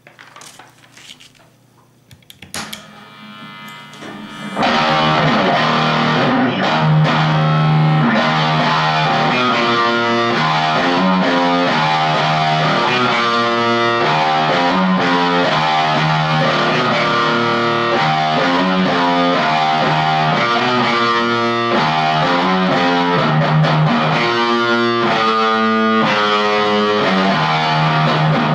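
Gibson Les Paul Studio electric guitar played through a Marshall Jackhammer JH1 distortion pedal into a Marshall MG15 amp's clean channel: a heavily distorted riff with changing notes over a repeated low note. After a few faint string and handling noises, the playing starts about four and a half seconds in.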